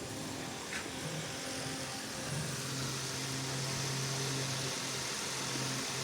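Steady low machine hum over a hiss, a little louder after about two seconds.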